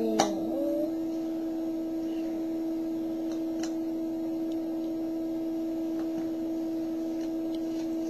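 A steady low hum with a higher overtone throughout, with a sharp plastic click just after the start and a few faint clicks a few seconds in, as snap-together electronics kit parts are pressed onto the plastic base grid.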